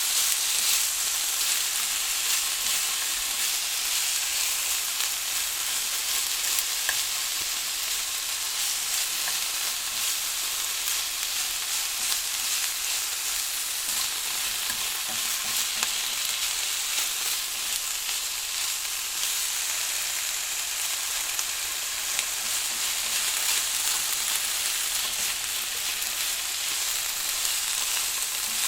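Vegetables sizzling steadily in hot oil during a stir-fry, a constant hiss dotted with small crackles and pops.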